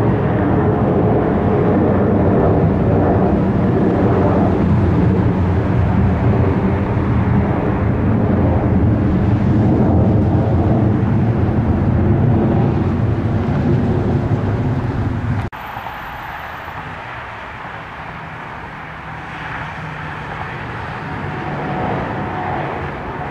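Airliner engines running loud, a heavy low rumble that breaks off suddenly about two-thirds through. A quieter aircraft engine sound follows and slowly builds.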